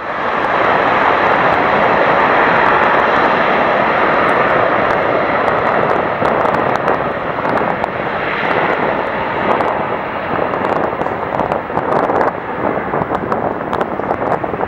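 Airliner's engines running loud and steady at takeoff power as it departs, easing slightly after about six seconds, with crackles of wind on the microphone.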